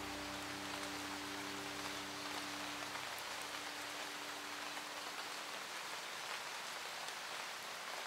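Steady, heavy rain falling.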